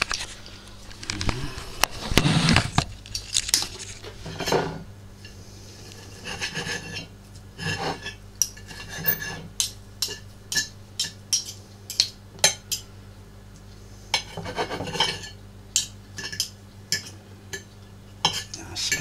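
A metal knife and fork cutting cooked chicken on a plate: the blade scrapes across the plate and the cutlery clinks and taps against it. There are longer scrapes near the start and again about three-quarters of the way in, with a run of quick sharp taps in between.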